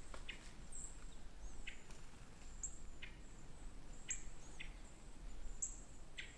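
A small bird chirping: faint, very high, short calls about every second, with a few soft rustles of dry leaves between them.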